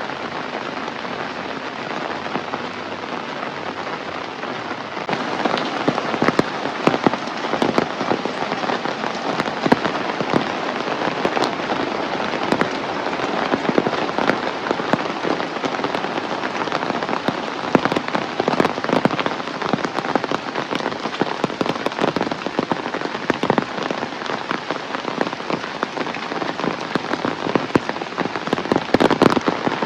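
Heavy rain falling, a dense steady hiss crowded with close, sharp drop impacts. It steps up louder about five seconds in.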